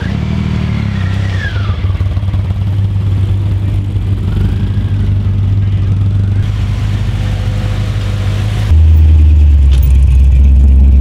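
A 1968 Dodge Charger's engine running steadily as the car rolls slowly past at low speed. About nine seconds in, the sound cuts abruptly to a louder, deeper engine note from an orange classic American muscle car passing close by.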